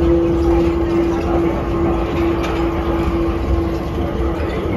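Automated airport shuttle train running, heard from inside the car: a steady low rumble with a constant hum from the drive.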